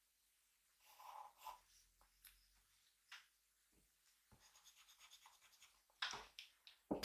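Faint scratching strokes of a drawing tool on paper, with a quick run of short strokes in the middle and a louder scrape near the end.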